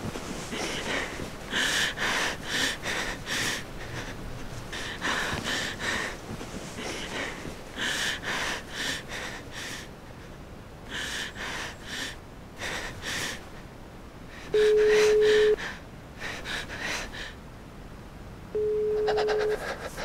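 A woman's heavy, shaky breathing in gasping bursts. Near the end come two loud, steady one-second beeps of a phone's call tone, a few seconds apart.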